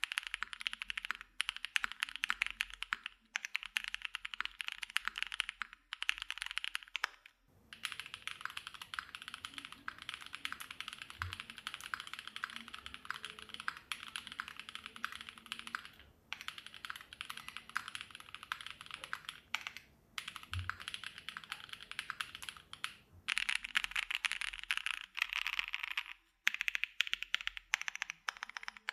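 Fast typing on a Pixelspace Shadow80 custom mechanical keyboard: a dense, continuous run of keystroke clacks with a few brief pauses. The tone shifts between two microphones, changing about a quarter of the way in and changing back near the end.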